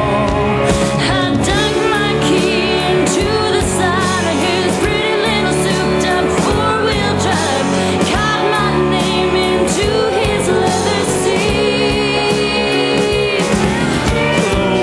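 Country band playing, a woman singing lead over electric guitar, bass and a steady beat, with a long held note about twelve seconds in.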